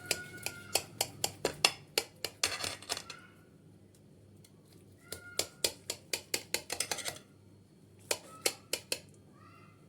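A metal utensil clinking and scraping against a baking dish in quick runs of taps, with short squeaks, as the baked zucchini béchamel is cut and portions are lifted out.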